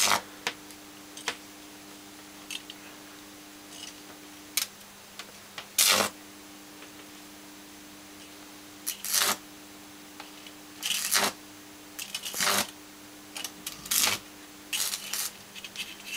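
Microwave oven transformer humming steadily, broken by short crackling bursts at irregular spacing as high-voltage arcs jump across the MIG-wire electrodes of a makeshift Jacob's ladder.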